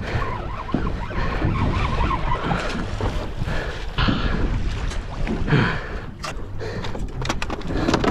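Wind buffeting the microphone over water noise around a small boat at sea, with a few sharp clicks and knocks near the end.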